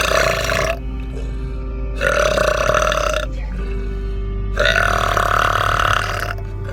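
A man belching three times: a short burp, then a longer one about two seconds in, then a long drawn-out burp near the end.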